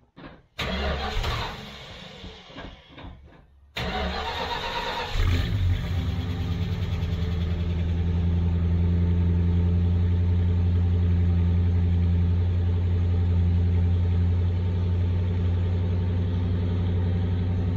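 1970 Dodge Coronet's 318 small-block V8 being started, its first start after a new fuel tank was fitted: the starter cranks unevenly for a few seconds, then the engine catches and settles into a steady idle.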